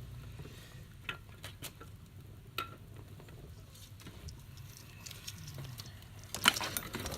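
Vinyl electrical tape being peeled off a wire-fishing coat hanger: faint crackling with scattered small clicks, then a louder burst of crackle near the end.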